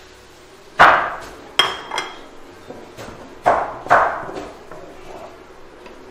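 Wooden spatula knocking and scraping against a stainless steel wok while stir-frying greens: about five sharp clanks, a few with a short metallic ring.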